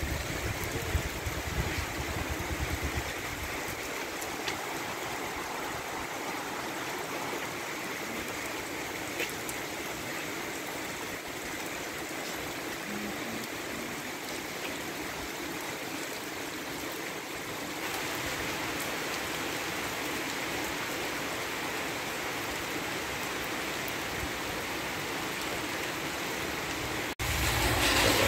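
Heavy rain falling steadily on wet ground and pavement, a continuous hiss with scattered drips. About a second before the end a car comes in on the wet road, adding a low engine and tyre sound.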